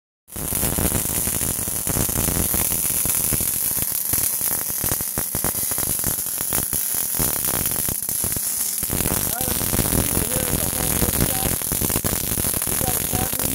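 MIG welder (solid wire with shielding gas) arc crackling steadily as a bead is run on steel plate, a dense stream of fine clicks. The crackle thins out about two thirds of the way through, with faint voices over it.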